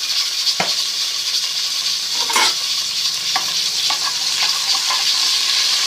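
Cumin seeds sizzling and crackling in hot ghee in a metal pot, with a few sharp clicks as a metal spoon stirs them.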